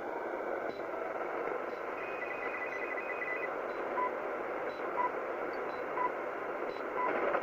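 Shortwave time-signal broadcast on 10 MHz heard through heavy receiver noise: a steady hiss with short beeps about once a second, the last few seconds loudest. A brief stuttering tone comes in about two seconds in. The reception is poor.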